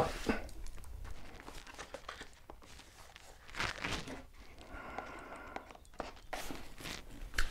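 Cardboard packaging being handled: a few short rustles and scrapes as a large product box is turned over and its outer printed sleeve slid off, loudest about halfway through and again near the end.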